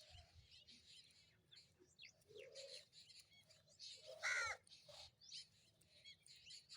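Sparrows chirping in quick, short notes throughout, with a crow giving one loud caw about four seconds in.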